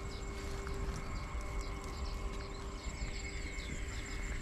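Outdoor ambience of many short, high, falling bird chirps repeating several times a second over a steady low rumble.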